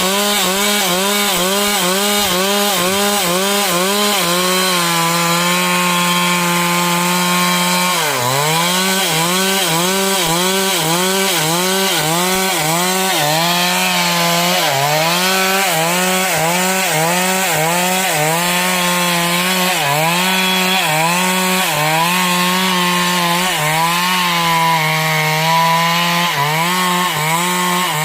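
Stihl MS 382 two-stroke chainsaw running at full throttle while cutting wood. Its pitch dips and recovers over and over as the chain bites into the cut: several quick dips a second at first, then slower, deeper dips with short steady stretches between.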